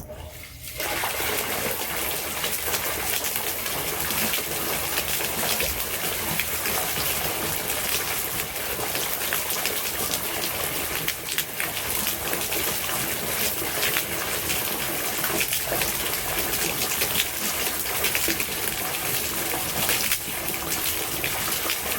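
1800 GPH submersible pond pump starting just under a second in, then running steadily in a water-filled aquarium tank, its outlet gushing water into the tank.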